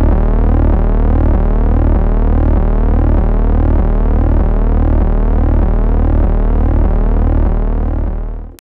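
Electronic synthesizer outro sound: a steady low drone with repeating gliding tones layered on top, fading out near the end and then stopping abruptly.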